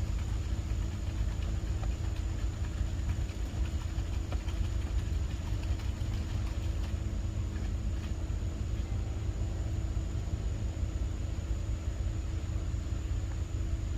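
Paint spray gun spraying thinned Rust-Oleum, a hiss over a steady low machine hum.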